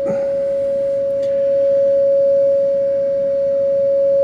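A steady single-pitch test tone from a signal generator, played through the 1948 Philco 48-1274's field-coil speaker via its output transformer. It grows a little louder about a second and a half in as the DC supply energising the field coil is turned up, which shows the transformer and field coil are working.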